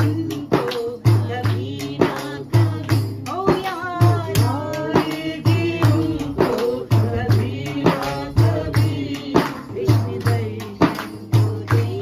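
Hand frame drum beaten in a steady rhythm, deep thumps with sharper slaps between them, accompanying a voice singing a melody.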